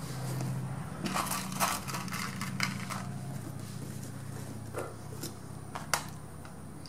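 Vinyl motorcycle seat cover crinkling and scraping as its edge is worked around the seat base with an awl, in irregular crackles. There is a sharp tap near the end as the awl is set down on the table.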